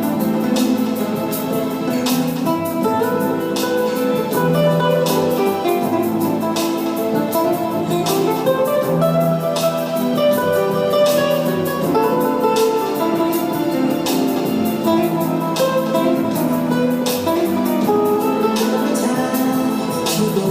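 Instrumental guitar music with sustained picked notes over a steady beat, sharp hits about every second and a half; no singing.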